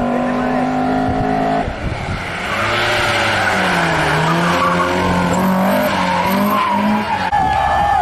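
Race car engine held at high revs, then dropping off about a second and a half in; it revs up and down through the gears as the car comes through the bend and passes close by, with tyre squeal and skidding noise in the middle.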